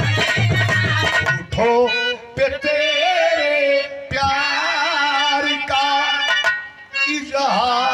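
Live birha folk music: hand drums beat a quick rhythm for about a second and a half, then stop as a man sings long, wavering held notes into a microphone.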